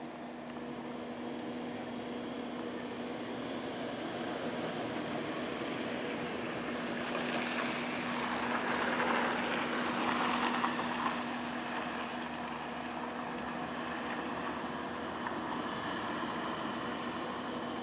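Distant engine noise of a passing vehicle or aircraft, swelling to a peak about nine to ten seconds in and then fading, over a steady low mechanical hum.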